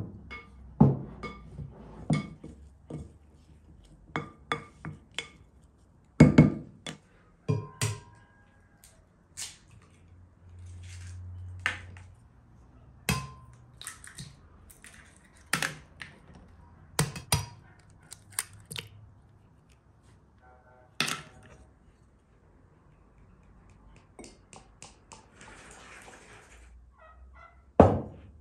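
Kitchen handling sounds: a string of sharp knocks and clinks against glass as a spoon works in a glass mixing bowl and eggs are cracked into a glass blender jar. A brief low hum comes about ten seconds in.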